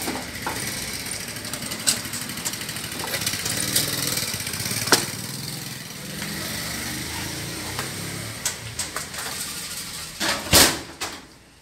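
A motor vehicle engine running in the street, mixed with the rustle and knocks of a plastic trash bag being handled. There is a sharp knock near the end.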